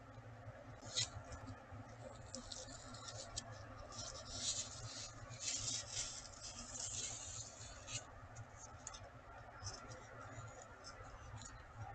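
Gravel crunching and scratching in short, faint bursts as a peregrine falcon shuffles her feet on the nest box's gravel floor while settling onto her eggs.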